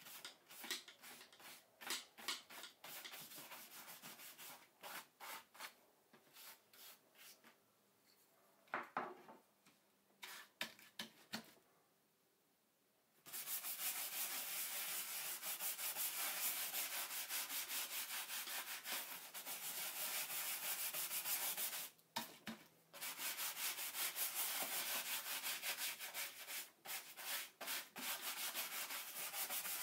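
Bristle brush scrubbing a leather car-seat cover with glycerin-soap lather. Separate rubbing strokes come first, then a brief lull. About thirteen seconds in, fast continuous back-and-forth scrubbing starts, with one short break partway through.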